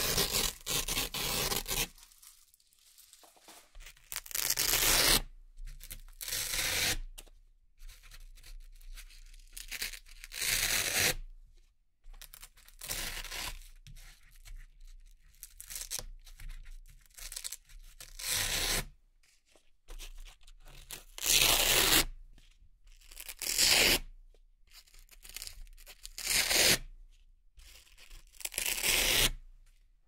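Hook-and-loop (Velcro) strips and round patches being peeled off one after another: a dozen or so crisp ripping tears, each about a second long, with short pauses of quieter handling between them.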